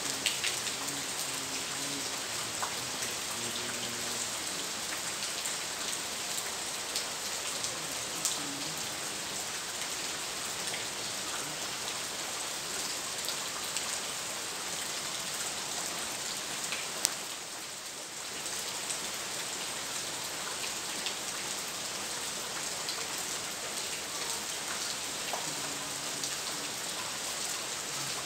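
Steady rain falling: an even hiss with scattered drop clicks, dipping briefly about two-thirds of the way through.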